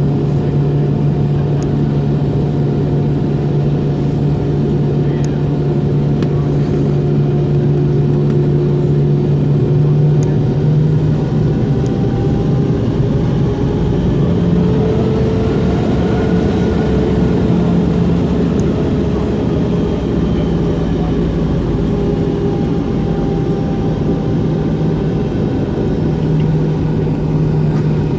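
MD-90's aft-mounted IAE V2500 turbofan engines running at low power, heard from inside the rear cabin as a steady drone with a low hum, pitch shifting slightly up and down partway through.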